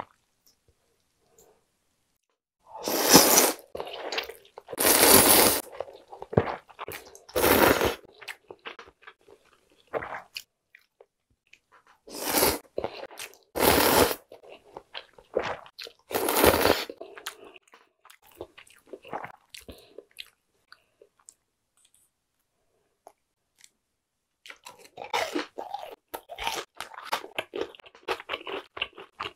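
Buckwheat soba noodles in broth slurped up close, about six loud slurps of half a second or so in the first seventeen seconds. After a quiet stretch, chewing with a run of small wet mouth clicks comes in near the end.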